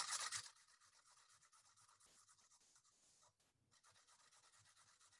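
Near silence with faint hiss, after a brief scraping rustle in the first half second.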